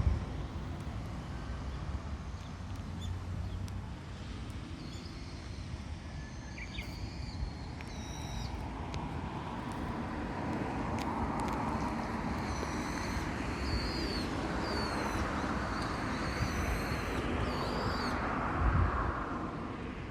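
White-cheeked starlings giving short, repeated chirping calls. Beneath them is a steady rumble of road traffic, with passing vehicles swelling louder in the middle and near the end.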